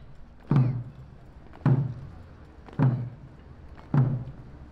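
Ceremonial drum struck in slow, steady beats: four deep booms about a second apart, each ringing out before the next, marking time in the guard-changing ceremony.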